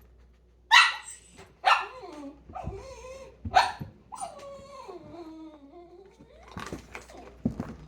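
A dog barks sharply three times, with shorter yips between, then gives one long whining call that slides down in pitch.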